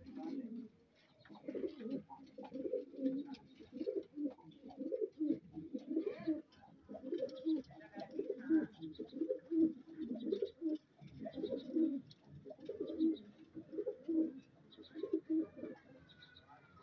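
Several domestic fancy pigeons cooing, their low throaty coos overlapping one after another without a break, dying down near the end.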